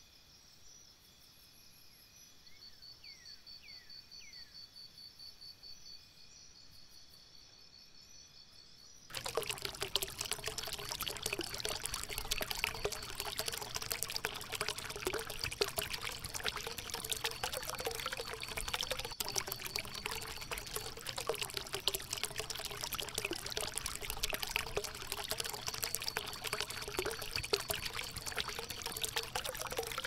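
Insects chirring steadily with a few short falling chirps, then about nine seconds in a sudden switch to a shallow rocky stream rushing and gurgling, much louder.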